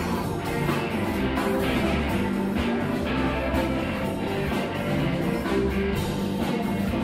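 Live rock band playing: electric guitar over bass and a drum kit, with a steady beat.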